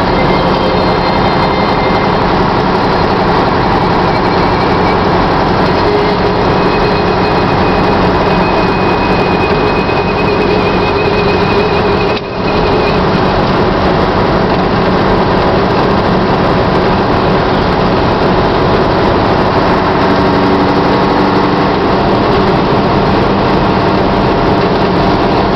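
Scania 142's V8 diesel engine running steadily as the truck drives, with a brief drop in loudness a little under halfway through.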